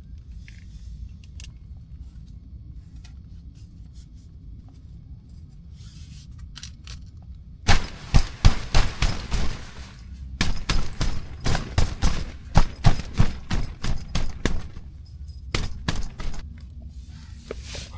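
A rapid, irregular run of sharp cracks and snaps, starting about eight seconds in and lasting several seconds, with a shorter burst near the end, over a low steady rumble.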